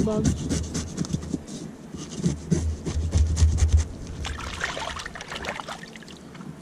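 Knife blade scraping scales off a trout, a quick run of short rasping strokes that turns fainter after about four seconds.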